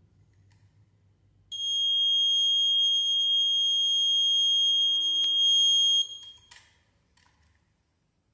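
Piezo buzzer on an overhead-line fault detector sounding one continuous high-pitched beep for about four and a half seconds. It is the alarm for a line-to-line fault, set off by a wire shorting two conductors. The beep starts about a second and a half in and cuts off suddenly, followed by a few faint clicks.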